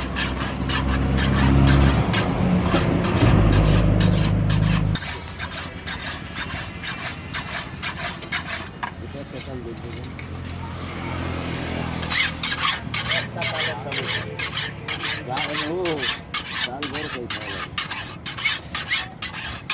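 Steel file scraping back and forth across the blade of an iron sickle (kachi) in quick regular strokes, about two or three a second, as its edge is filed. The strokes thin out in the middle and come on strong again about twelve seconds in. A low mechanical hum runs under the first five seconds and cuts off suddenly.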